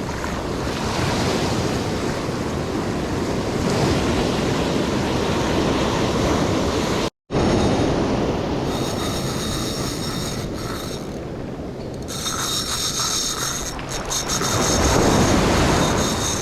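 Ocean surf breaking on the shore, with wind buffeting the microphone. The sound cuts out for a moment about seven seconds in.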